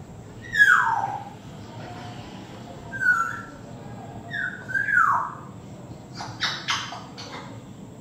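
African grey parrot whistling: a falling whistle about half a second in, a short whistle around three seconds, and two more swooping whistles a little before and at five seconds. Near the end it makes four short, harsh clicking sounds in quick succession.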